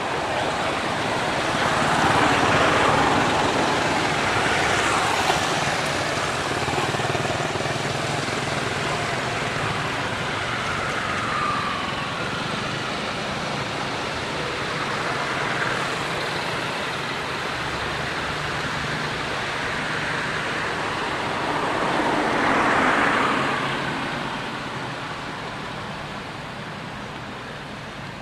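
Steady outdoor rushing noise that swells and fades, loudest about two seconds in and again near twenty-three seconds, then dies down toward the end.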